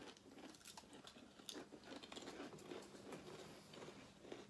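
Faint crunching of hot, spicy crisps being chewed, a quick irregular run of small crackles.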